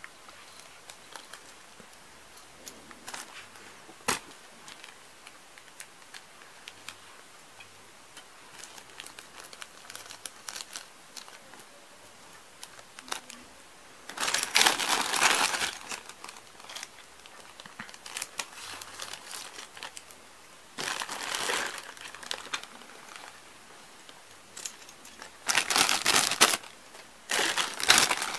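Thin clear plastic parts bags crinkling as they are handled, in four loud bursts in the second half, with scattered light clicks and one sharper click before them.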